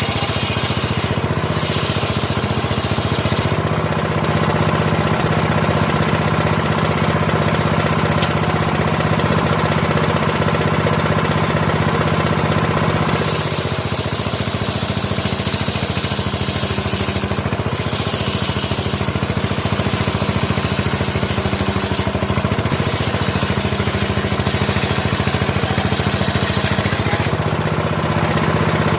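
An engine-driven sawmill running steadily with a constant engine drone. Several stretches of high hissing come and go over it, a few seconds each, as the saw cuts through timber.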